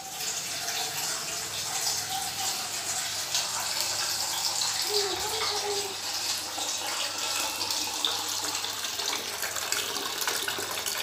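Water running steadily from a water purifier's tap into a stainless steel bowl.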